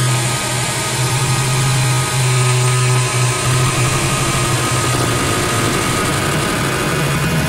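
Heavily distorted, digitally processed audio: a steady low buzzing drone under a dense hiss, the drone breaking off briefly a few times.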